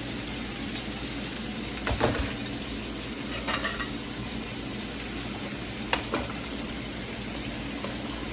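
Chunks of beef sizzling steadily in a frying pan on a gas stove, with a few knocks and clinks of metal pot lids and a spoon against a pot about two, three and a half and six seconds in.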